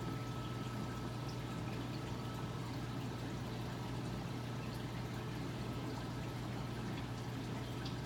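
Running saltwater aquarium: a steady low pump hum with water trickling through the filtration and faint scattered drips.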